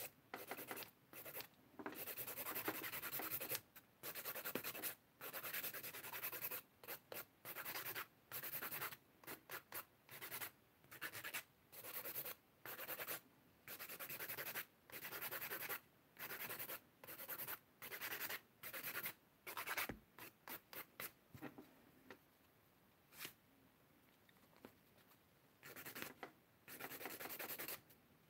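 A hand nail file rasping back and forth across acrylic nails in runs of quick strokes with short gaps, and a pause of a few seconds about three quarters through. The file is one that is getting a bit blunt.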